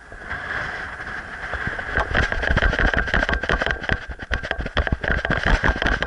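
Strong wind buffeting the microphone in gusts, getting stronger from about two seconds in, with a steady high whistle running through it.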